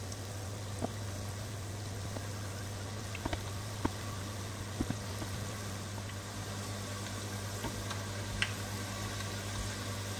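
Small cottage-cheese doughnut balls frying in a pot of hot oil: a steady sizzle with scattered small pops and crackles, over a constant low hum.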